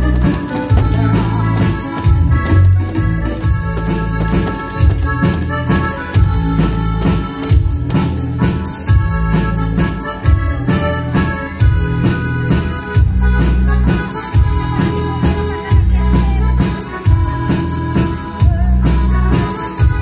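Instrumental break played on a Yamaha S770 arranger keyboard: a keyboard melody of held notes over a steady drum beat and bass.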